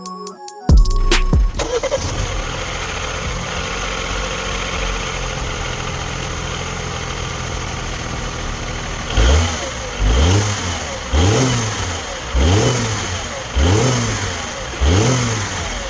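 Mini One 1.4 four-cylinder petrol engine running on its first start after new Vanos solenoids are fitted. It idles steadily for several seconds, then the throttle is blipped about every second, the revs rising and falling six times.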